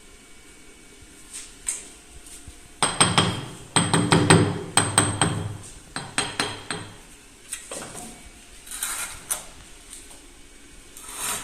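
Hammer striking a brick to trim it to fit: a quick run of sharp blows a few seconds in, then scattered lighter knocks.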